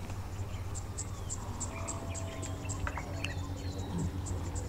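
Insect chirping in an even rhythm of short high chirps, about three a second, over a steady low rumble, with a few faint whistled bird notes.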